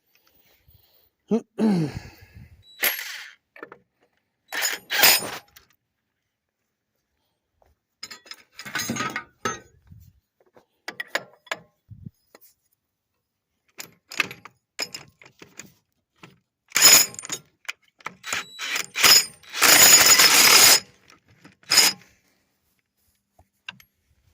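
Intermittent metal clanks, knocks and rattles of hand tools working on a combine corn head's gathering-chain parts, with a longer rasping burst about twenty seconds in.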